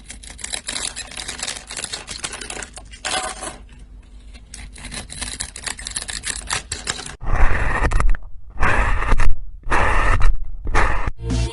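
A blade cutting a scored bar of soap, with small cubes crumbling off in dense, crackly scraping. About seven seconds in, this gives way to louder separate strokes of a knife slicing through kinetic sand, several cuts with short gaps between them.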